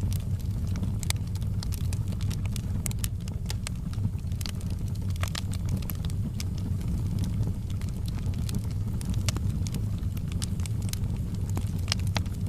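Wood fire burning in a fireplace: frequent irregular crackles and pops over a steady low rumble of the flames.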